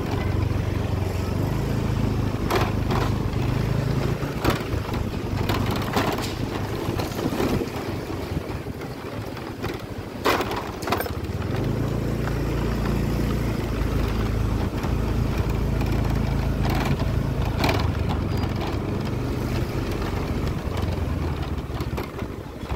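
Small motorbike engine running at low speed with a steady low hum, easing off about eight seconds in and picking up again around twelve seconds, with scattered knocks and rattles.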